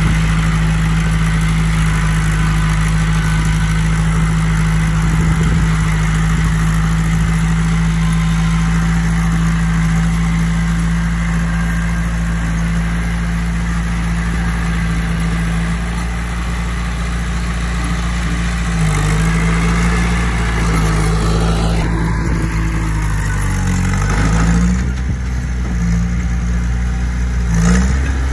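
Bulldozer's diesel engine running steadily, its speed dipping and picking back up a few times near the end.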